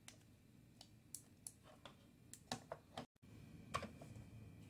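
Faint, irregular clicks of Commodore 64 keys being typed, with a brief cut to silence about three seconds in.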